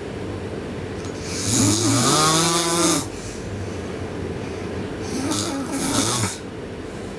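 A girl snoring loudly in her sleep: two long rasping snores about four seconds apart, the first louder, each a pitched note with a breathy hiss. A steady low hum runs underneath.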